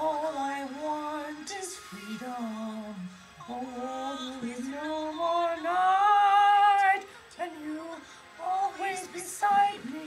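A young woman and a young man singing melodic phrases, with one long, loud held note about six seconds in.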